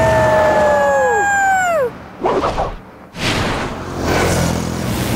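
A held tone slides down in pitch and cuts off about two seconds in. After a short gap, a cartoon ATV engine starts running steadily.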